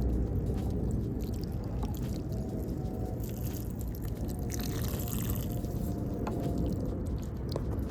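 Running water, strongest in the middle few seconds, with a few light clicks and knocks.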